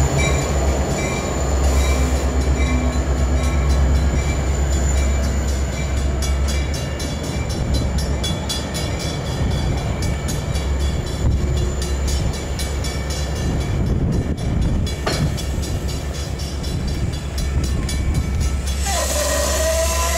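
Metra bilevel passenger coaches rolling past close by as the train pulls out of the station: a steady low rumble with the wheels clicking over rail joints. Near the end a tone sets in that slides down and then back up.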